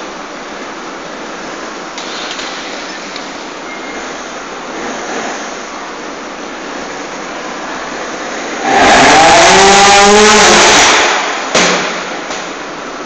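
Trials motorcycle engine revved hard and loud for about two and a half seconds, its pitch climbing, then blipped once more briefly; before that a steady background noise fills the hall.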